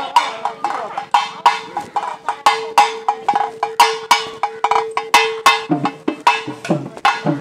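Pambai and udukkai drums beating a fast, even rhythm of sharp strokes, about three to four a second. A steady held tone sounds through the middle, and low drum notes that bend in pitch come in near the end.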